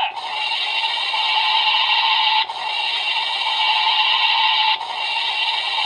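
Electronic sound effect from a Kamen Rider Decade toy transformation belt playing Hibiki's 'Onibi' demon-fire card: a steady hissing blast of fire with a constant tone underneath, breaking off briefly twice.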